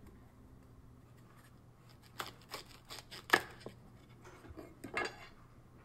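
Chef's knife slicing through fennel stalks and tapping the wooden cutting board: a run of short, crisp cuts starting about two seconds in, with a few more near the end.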